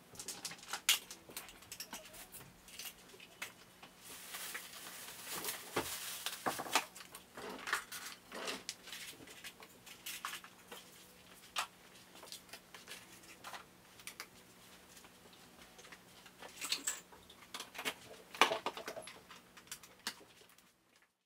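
Small items being handled and set down on a shop counter: scattered clicks, light knocks and rustling at an irregular pace, over a faint steady hum.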